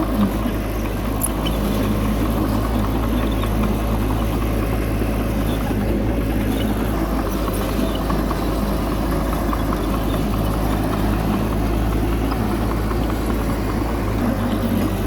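Heavy diesel engine of earthmoving machinery running steadily, a low even drone with no change in speed.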